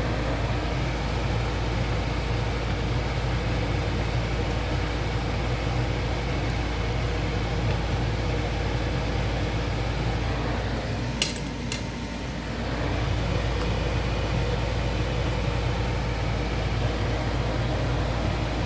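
A steady low machine hum, with a brief dip about eleven seconds in where two short clicks sound.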